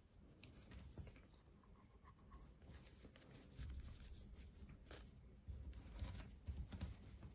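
Faint rustling and scattered light ticks of paper yarn being worked with a crochet hook.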